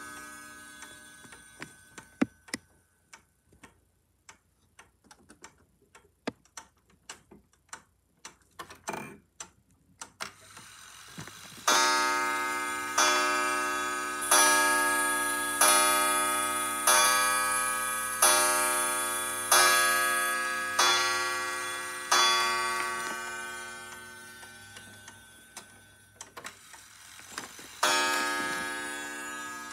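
Parliament 31-day chime wall clock ticking, then striking the hour nine times, about one ringing strike every 1.3 seconds, each note dying away under the next. One more strike rings out near the end.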